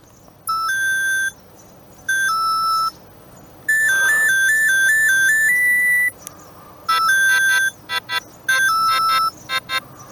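Siemens M65 mobile phone playing a series of short electronic alert tones, with brief pauses between them: a rising two-note beep, then a falling one, then a warbling trill that ends on a held higher note, then more two-note beeps mixed with quick short beeps.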